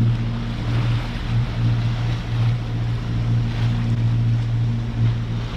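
A sailboat's engine running steadily under motor, a constant low drone, with wind on the microphone and water rushing along the hull.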